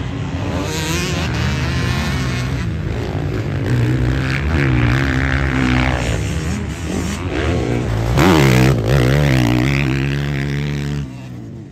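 Motocross bike engines revving on a dirt track, their pitch rising and falling as the riders open and close the throttle and shift. The sound changes abruptly about six, eight and eleven seconds in.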